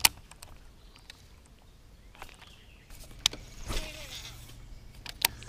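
Bow-mounted electric trolling motor on a bass boat humming steadily, switching on about halfway through. A few sharp clicks sound over it, the loudest right at the start.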